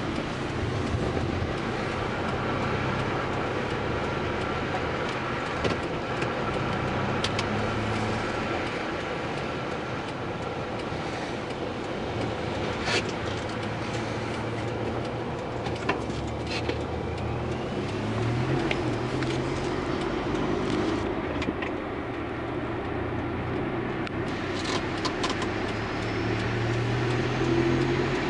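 Car engine and road noise heard from inside the cabin while driving. The engine note shifts with speed and rises about two-thirds of the way in as the car speeds up. A few short clicks are scattered through it.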